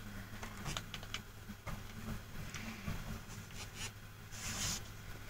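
Faint taps and rubbing of fingers handling a smartwatch and its touchscreen: scattered light clicks, with a brief rustle about four and a half seconds in, over a low steady hum.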